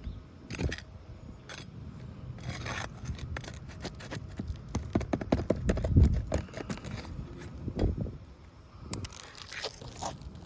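Asphalt roof shingle being worked loose by hand: irregular scraping, crunching and tearing with sharp knocks, the loudest about six seconds in.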